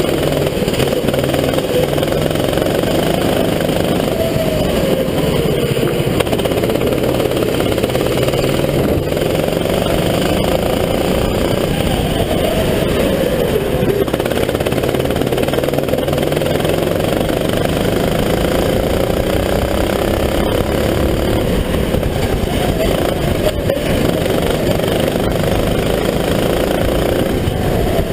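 Onboard sound of a rental go-kart's engine at racing speed, its revs rising and falling repeatedly as it accelerates and lifts.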